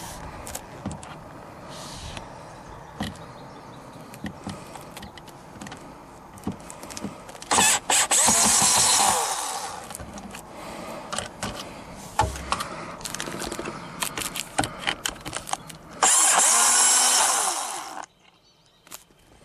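Power drill running twice, about two seconds each time, backing out screws, with clicks and handling knocks between the runs.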